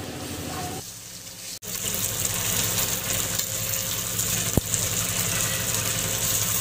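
Spice-coated surmai (kingfish) steaks sizzling as they shallow-fry in oil on a flat pan. The sizzle is softer for the first second and a half, then louder after a cut, with a single sharp tap about four and a half seconds in.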